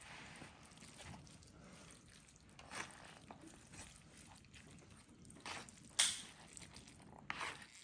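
Instant ramen noodles being stirred in a thick sauce, with soft wet squishing and a few short knocks of the utensil against the pot, the sharpest about six seconds in.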